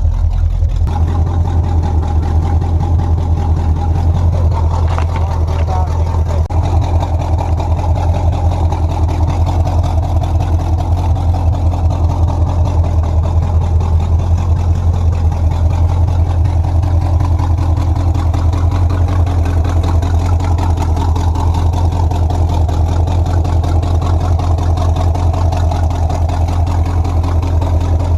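V8 engine of a 1985 Chevy C10 pickup idling steadily with an even exhaust pulse.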